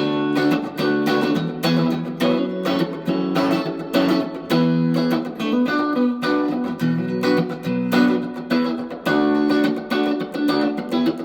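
Reverend Eastsider S electric guitar played through an amp on its combined neck and middle single-coil pickups, the 'quack' position. It plays a steady run of picked chords and single notes with a nice and quacky tone.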